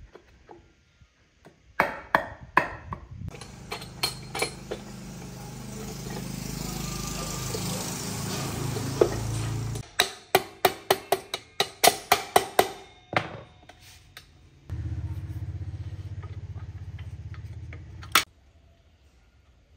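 Metal parts of a motorcycle rear wheel being fitted: sharp clinks and taps, then a run of quick clicks about five a second, with two stretches of a steady low hum that cut off abruptly.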